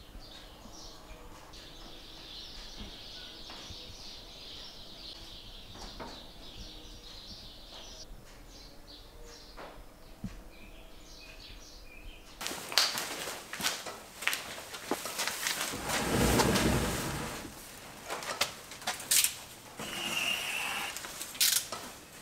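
Faint bird chirps over quiet room tone. About halfway through, loud, irregular crinkling, rustling and tearing, with sharp crackles, as a sheet of fibreglass mat is pulled off a roll and torn.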